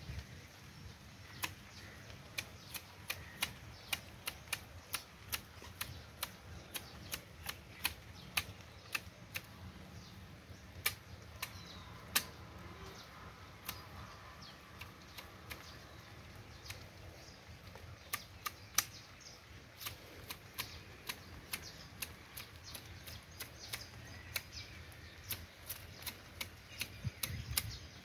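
Manual hedge shears snipping ficus foliage and twigs: sharp blade clicks repeating irregularly, about one to two a second.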